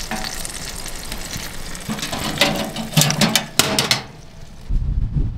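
Chicken sizzling in the oven of a wood-fired stove, then a quick run of ringing metallic clanks as the oven is handled and closed. The sizzle cuts off about four seconds in, and wind rumbles on the microphone near the end.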